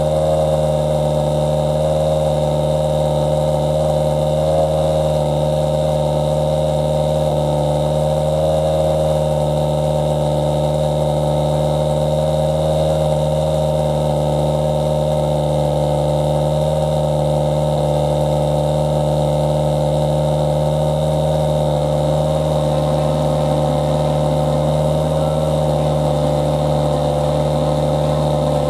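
Toyota Yaris WRC rally car's 1.6-litre turbocharged four-cylinder engine idling steadily, heard at the exhaust outlet: an even note with no revving or anti-lag bangs.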